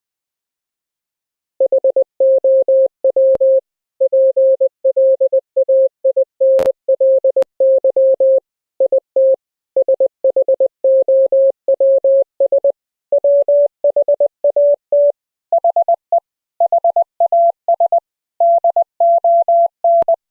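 Morse code audio: a single sine-wave tone from a software code practice oscillator, keyed rapidly in dots and dashes. It starts after about a second and a half of silence. The pitch steps up slightly about two-thirds of the way in and again a little later. A few faint clicks are heard among the tones.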